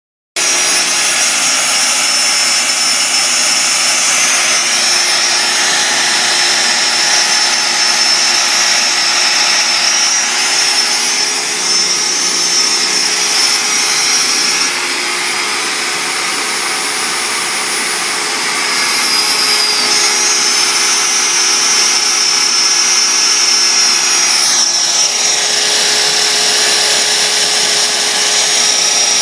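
CNC router spindle running steadily with a high whine while its bit mills G10 fibreglass sheet, over a constant cutting hiss. It starts suddenly, is a little quieter for a stretch in the middle, and one tone falls in pitch near the end.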